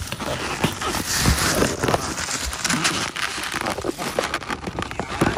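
Crackling and rustling handling noise as the recording phone's microphone is rubbed and covered, full of small clicks and scrapes.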